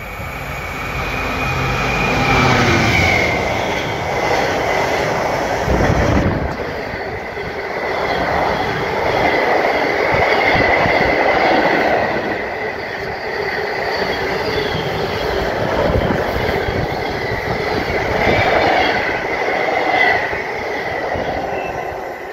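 A container freight train passing close at speed. The locomotive's engine is heard coming in over the first few seconds, then the long rake of container wagons rattles past with a rhythmic clatter of wheels over the rail joints and a thin, high squeal running through it.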